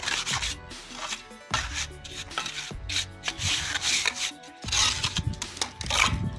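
Steel mason's trowel scraping and spreading cement mortar along the top of a brick course: an irregular run of short rasping strokes, several a second.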